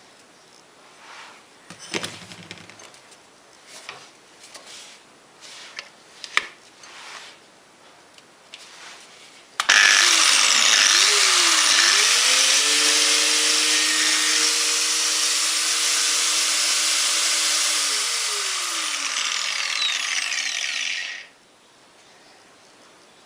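A few handling clicks and knocks, then about ten seconds in a Makita GA4530R angle grinder is switched on. It spins up with a rising whine and runs steadily with no load for about ten seconds. Then its pitch falls and the running sound cuts off.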